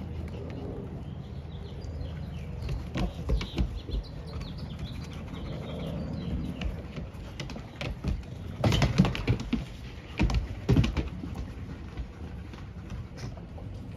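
A puppy and a senior golden retriever play-wrestling on a wooden deck: scuffling and knocks, with a cluster of louder ones a little past the middle. Small birds chirp in the background over a low steady hum.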